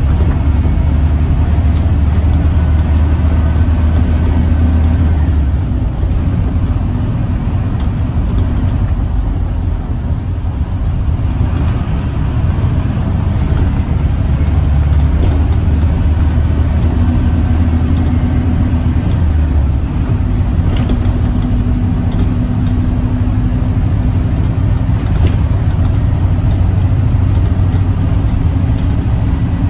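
Cabin sound of a Mercedes-Benz O814 Plaxton Beaver 2 midibus on the move: the diesel engine's low drone with road and tyre noise. The engine note is strongest for the first five seconds and again from about thirteen to twenty seconds, easing in between.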